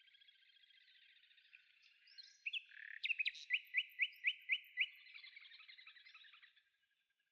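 Bird song: buzzy trills, then a run of about seven sharp rising chirps, about four a second, before it trails off.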